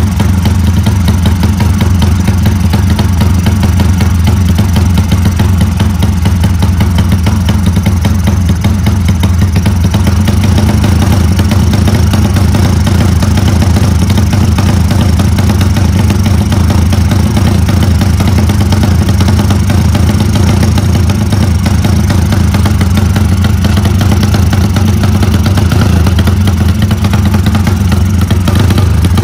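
Drag-race motorcycle's single-cylinder engine idling steadily through its open racing exhaust while the carburettor's air screw is being set.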